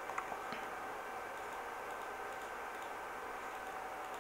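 Quiet room tone: a steady low hiss with a faint steady hum, and a few small faint clicks near the start.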